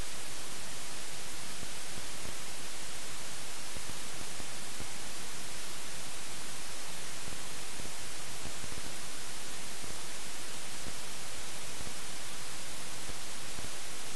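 Steady, even static hiss, brighter toward the high end and unchanging throughout, with no engine or other sound in it: the camera's audio recording failed.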